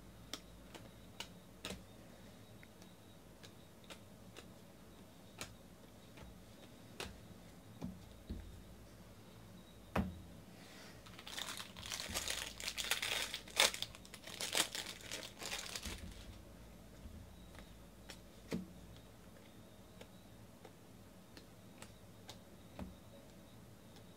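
Baseball cards being flicked one by one through the hands, giving soft scattered clicks; about eleven seconds in, the plastic wrapper of a card pack crinkles and tears for about five seconds, then the card clicks resume.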